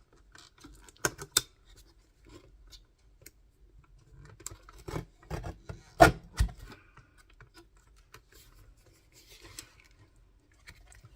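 Paper trimmer cutting card and lace: scattered clicks and knocks from the trimmer and paper being handled, the sharpest about six seconds in, with soft rasping of the blade. The blade does not cut cleanly through the lace.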